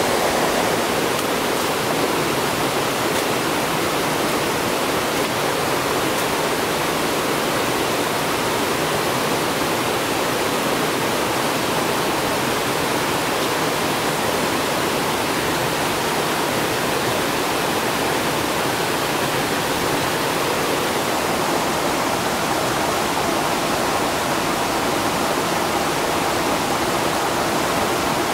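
Steady rush of fast-flowing water from a forest creek and waterfall running high and muddy after a flood.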